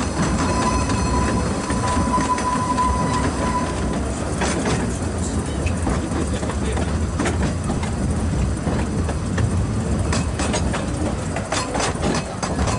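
Narrow-gauge steam train heard from inside a riding carriage: the steady rumble of the coaches running over the track, with a thin steady squeal for the first few seconds. After that come scattered clicks and knocks from the wheels.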